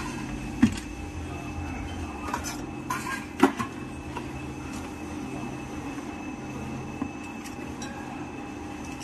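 Metal pole tube of a garment steamer clinking and knocking against the steamer's plastic base and fittings as it is handled: a few sharp knocks, the loudest about three and a half seconds in, over a steady low hum.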